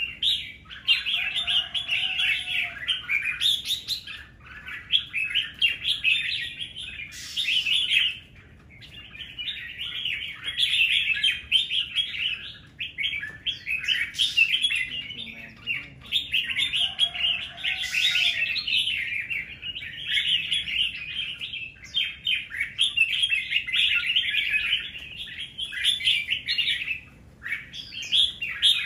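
Red-whiskered bulbuls singing: fast, chirping phrases a few seconds long, broken by short pauses.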